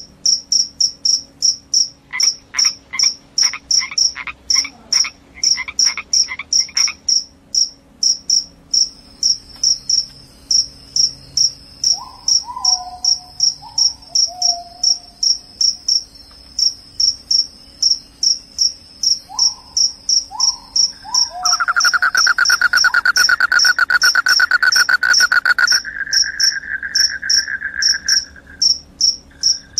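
Field crickets chirping in a steady rhythm, high-pitched, about three chirps a second. A second insect's call comes in and out, and about two-thirds of the way through a lower, loud continuous trill joins; a few short falling calls are mixed in.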